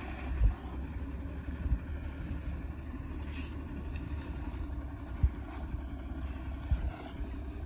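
A vehicle driving over a rutted, muddy dirt road: a steady low rumble with a few scattered thumps from bumps.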